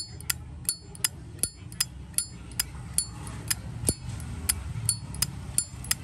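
Zippo lighter with a brass insert being clicked open and snapped shut over and over, about two to three sharp metallic clicks a second, many with a short bright ring. The lid's click sounds quite good.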